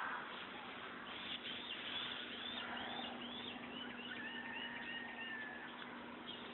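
A bird singing: a quick series of about ten high rising-and-falling notes that trail off slightly lower, followed by one long steady whistled note, over a faint steady low hum.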